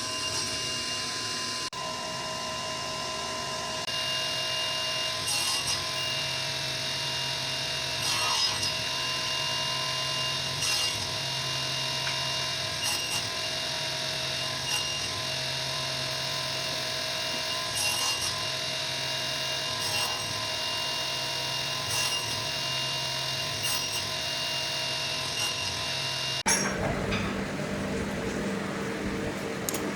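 A power tool running steadily while cutting wood: a constant motor hum with a scraping surge about every two seconds. The sound changes abruptly twice, near the start and near the end.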